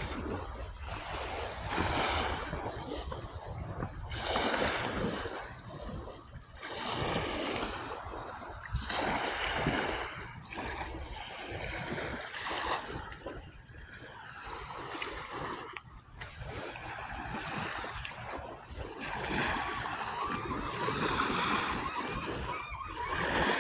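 Ocean waves washing and splashing on the shore, swelling and fading every second or two. A bird's high whistled calls, falling in pitch, come through about ten seconds in and again near sixteen seconds.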